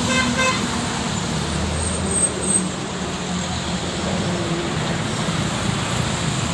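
Steady road traffic noise from cars and motorbikes, with a vehicle horn beeping twice in quick succession right at the start.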